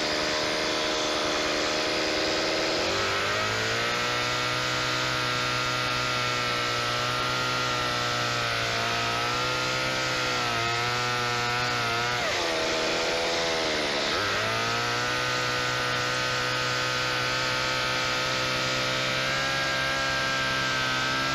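Gasoline chainsaw running as it cuts into a pumpkin: the engine revs up about three seconds in, sags and drops back around twelve seconds in, then revs up again and holds.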